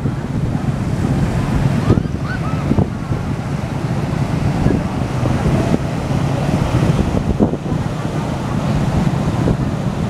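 Ocean surf washing up a flat sandy beach in a steady rush, with wind buffeting the microphone.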